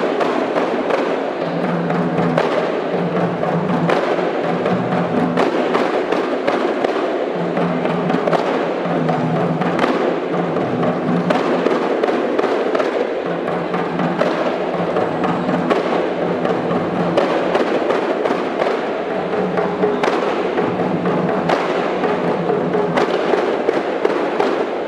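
A kompang troupe beating Malay single-headed frame drums by hand together, a continuous fast rhythm of many sharp strikes.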